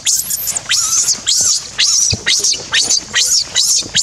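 Infant macaque giving shrill distress screams over and over, about two or three a second, each falling in pitch, while an adult holds it down on the ground.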